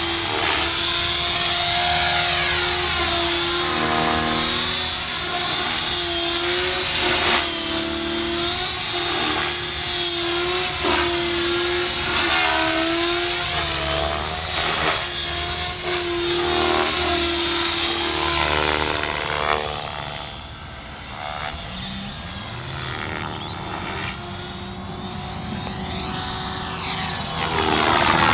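Align T-Rex 550 electric RC helicopter in aerobatic flight: a steady high whine from motor and gears over the rotor sound, whose pitch swings up and down as the model manoeuvres and passes by. It fades about twenty seconds in as it flies farther off, then grows louder again near the end.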